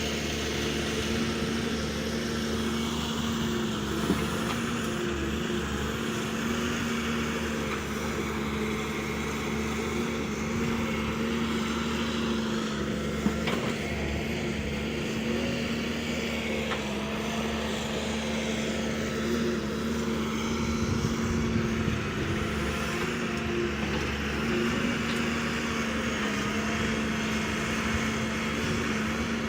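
Heavy machinery's diesel engine running steadily, with two brief sharp knocks, about four seconds in and again about thirteen seconds in.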